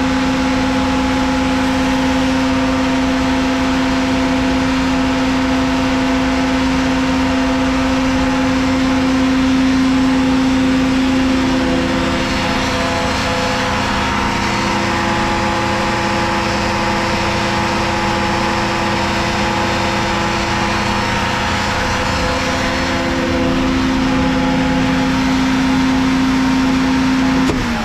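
CompAir 6100 Cyclon 100 HP rotary screw air compressor running steadily with a constant hum. About twelve seconds in, its tone shifts slightly higher and a little quieter, and it shifts back near the end. At the very end the pitch starts to fall as the machine winds down.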